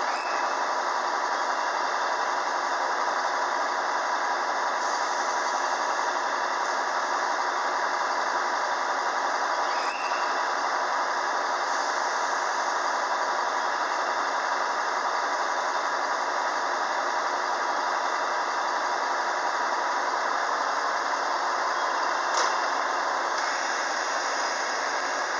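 A stationary 117 series electric train idling at the platform: a steady hiss and hum with a constant high whine from its onboard equipment, and a couple of brief clicks.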